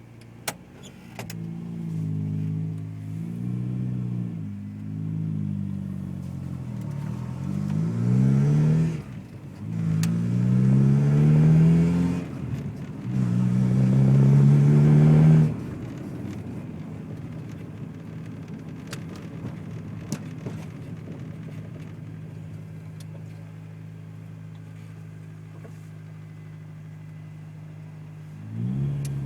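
Honda B16 four-cylinder engine revved several times, its pitch rising and falling, with the three longest rising pulls in the middle being the loudest. It then settles to a steady idle and picks up again right at the end.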